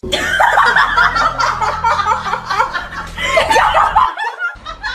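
People laughing hard in quick repeated bursts. The laughter breaks off briefly near the end, then starts again.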